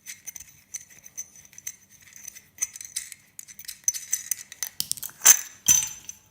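Small metal parts of an old light fitting clicking and scraping as it is worked apart by hand, with two louder metal knocks a little after five seconds in.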